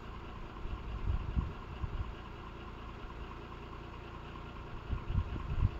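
A vehicle engine running steadily at low revs, with a few low thumps about a second in and again near the end.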